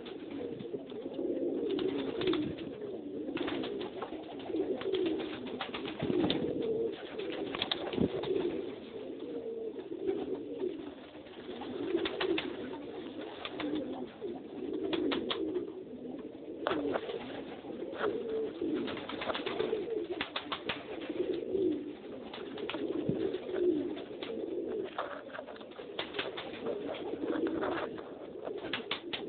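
Domestic pigeons cooing continuously in their loft, with scattered sharp clicks and taps over the cooing.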